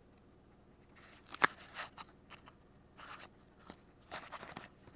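Irregular crunches and sharp knocks from a 2020 Toyota RAV4 crawling over a rough, rocky dirt wash, heard inside the cabin; the loudest is a single sharp knock about a second and a half in, with smaller clusters of crunching later.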